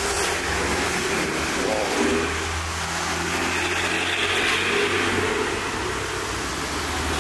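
A motor vehicle engine running with a steady low hum, over street noise.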